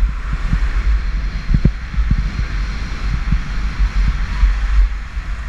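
Wind buffeting the microphone during a fast run down a groomed ski slope, a steady heavy rumble, over the hiss of sliding on packed snow.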